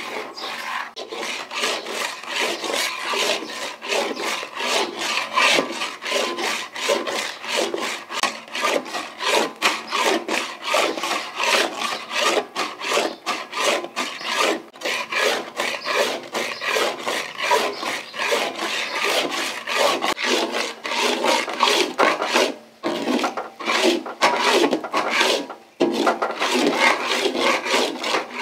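Steel spatula scraping the bottom of an iron kadai in quick repeated strokes, about three a second, while stirring milk thickened into khoya paste. There are two short breaks near the end.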